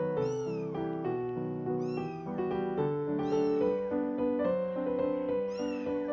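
Two-week-old kittens mewing: about four short, high mews that rise and fall, over background music with a slow stepping melody.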